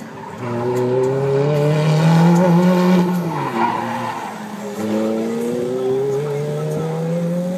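Sports car engine accelerating hard, its pitch climbing for a few seconds, then falling away about three seconds in with a short tyre squeal as the car turns, before climbing again under acceleration.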